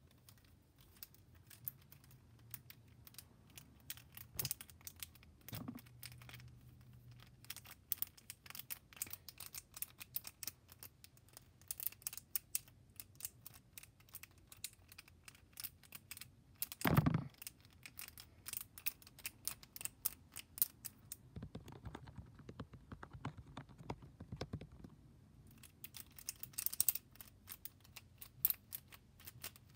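Plastic fidget toys being worked in the hands: rapid, irregular clicking and rattling of small plastic parts, with one louder knock a little past the middle.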